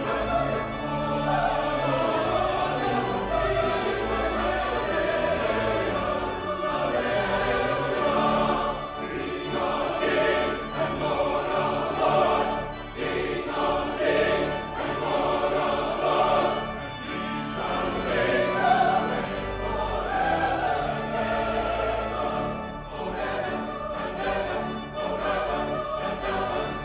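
A choir singing with an orchestra: end-credits choral music with long, sustained sung notes.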